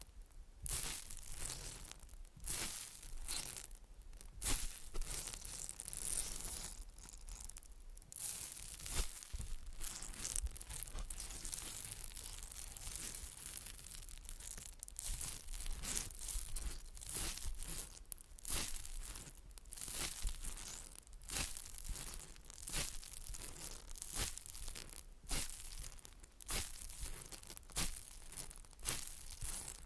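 Close-miked ASMR trigger sounds: a continuous run of irregular crinkling, tearing-like strokes, bright and scratchy, several a second.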